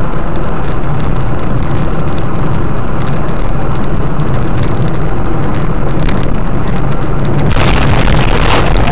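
Car driving, heard from inside the cabin through a dashcam microphone: loud, steady engine and road noise with a low hum. About seven and a half seconds in, the noise turns harsher and hissier as the car veers off the asphalt toward the dirt verge.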